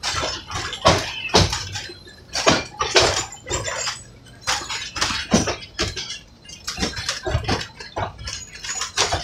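Irregular clanks and rattles from a moving narrow-gauge passenger train coach under way, knocking at uneven intervals a few times a second.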